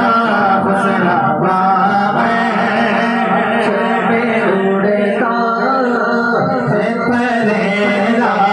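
Male voice singing a naat, an Urdu devotional song, through a microphone and PA, in long, drawn-out melodic lines.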